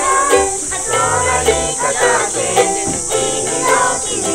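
Ukulele strummed in a steady rhythm, with low bass notes joining about a second in.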